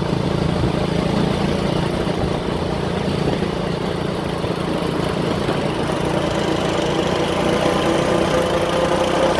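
Small motorbike engine running steadily at road speed, heard from a moving motorbike, with road and wind noise. The engine note rises a little in the later part.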